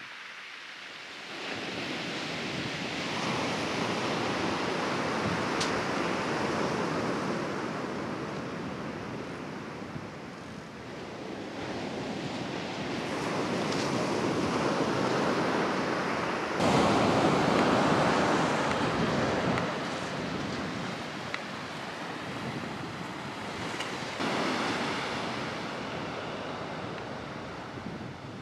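Sea surf washing onto a beach, swelling and fading several times as the waves break. The loudest surge comes a little past halfway.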